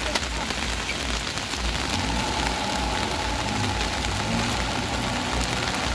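Steady hiss of rain falling, with a heavy truck engine running underneath; about two seconds in, a steady whine from the engine becomes clearer.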